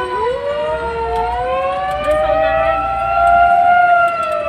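Fire engine sirens wailing: two slow siren tones glide up and down, out of step with each other.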